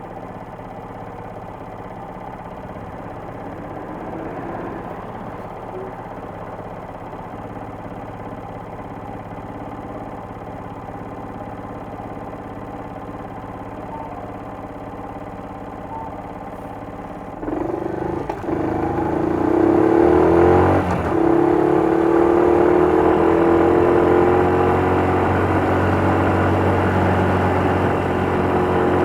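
Honda Little Cub's 88cc single-cylinder four-stroke engine running steadily. About 17 seconds in it gets suddenly louder, breaks off briefly twice, then climbs slowly in pitch as it accelerates.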